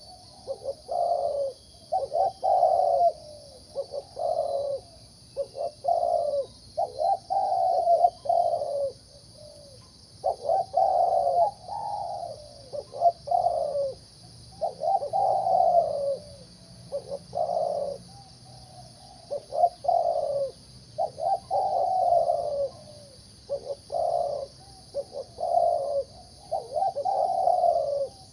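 Zebra dove cooing over and over in the rolling, clipped phrases of a contest bird. Each phrase is a few short notes running into a longer coo, with brief pauses between phrases.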